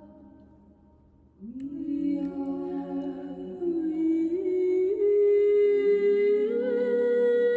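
A woman's voice looped and layered upon itself, humming sustained notes in harmony. A held chord fades away, then about a second and a half in a new chord of long held tones enters and builds, its top line stepping up in pitch a few times.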